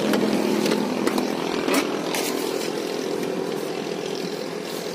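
A steady engine hum, with the door latch of a Chevrolet Cruze clicking as the door is opened about two seconds in.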